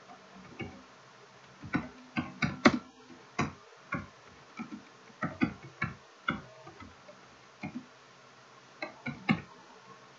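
Computer keyboard being typed on: irregular keystroke clicks, one short run after another, with a brief pause about seven seconds in.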